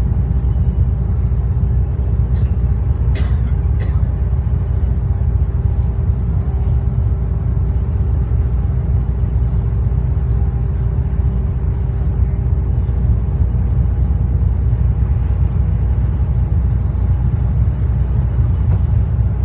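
Cabin noise of a bus at steady cruise: its Cummins ISL straight-six diesel running under a steady low rumble with a faint steady hum. A couple of brief clicks come about three to four seconds in.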